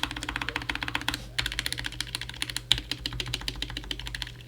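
Mechanical keyboard keys pressed in rapid succession, a fast, even stream of clacks with a brief break about a second and a half in. The switches are not yet lubed, and the stabilizers are lubed with cheap lube.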